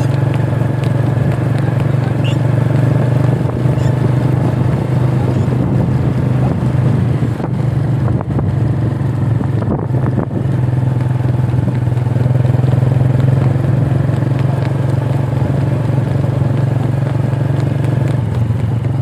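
Small motorcycle engine running steadily at cruising speed, a loud continuous hum that dips briefly a couple of times.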